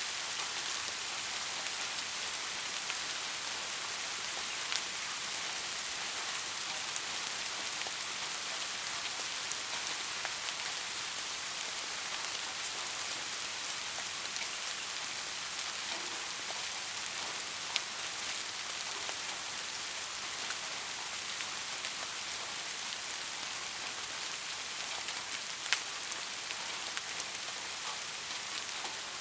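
Steady, even hiss played as white noise for sleep, strongest in the high end, with a few sharp ticks scattered through it.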